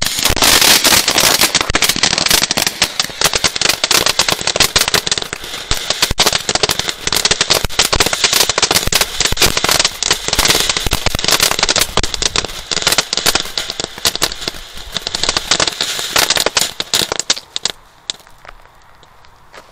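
"Dragon" ground fountain firework spraying sparks, with a loud, dense, rapid crackling over a steady hiss that dies away near the end.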